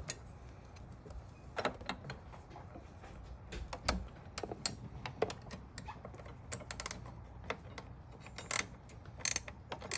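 Irregular metallic clicks and clinks of 13 mm wrenches working the bolt of a Can-Am Spyder sway bar end link, a few at a time with short pauses between.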